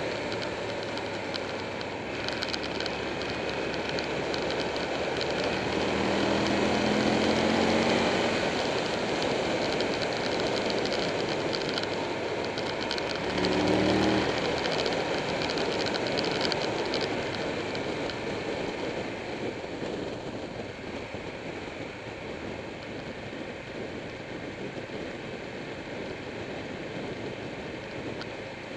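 Buell 1125R's V-twin engine running at road speed under a steady rush of wind, rising in pitch as it accelerates twice: from about six to eight seconds in, and briefly around fourteen seconds in.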